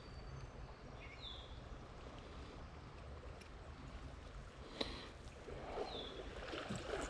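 Faint riverside ambience: a steady low rumble of flowing water and wind. A bird gives a short falling chirp twice, about a second in and about six seconds in, and there is a single sharp click near five seconds.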